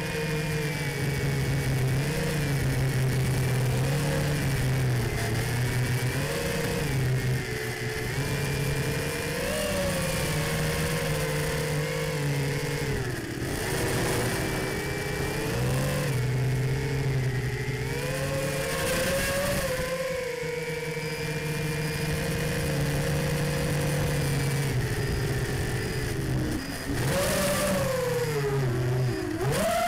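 Small FPV racing quadcopter's brushless motors and propellers buzzing, the pitch rising and falling constantly with the throttle, with a deeper swoop down and back up near the end, heard from the onboard camera.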